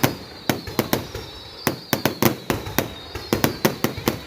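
Fireworks going off in a rapid, irregular string of sharp bangs and pops, several a second, with a faint high whistling tone running underneath.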